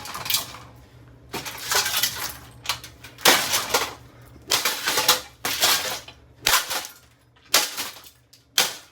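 Cheap plastic housing of an AeroSpeed BX100 box fan being smashed and broken apart: a series of a dozen or so sharp cracks and crashes, a few with a brief rattle of loose parts.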